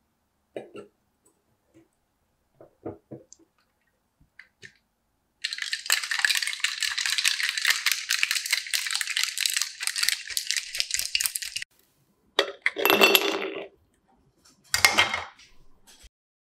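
A few light metal clinks as the cap goes onto a stainless steel cocktail shaker, then ice rattling hard and fast inside it for about six seconds as it is shaken. Near the end come two shorter, louder clattering bursts of metal and ice.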